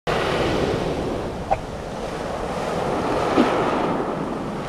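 Sea waves washing onto a pebble beach, with wind on the microphone. Two brief sharp sounds stand out, about a second and a half in and again about two seconds later.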